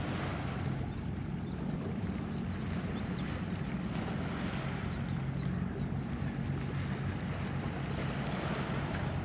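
Steady low drone of a ship's diesel engine, heard across the water under a hiss of wind.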